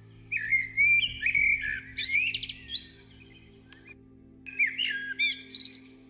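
A songbird singing two phrases of quick whistled notes, slurs and trills, with a pause of about a second and a half between them.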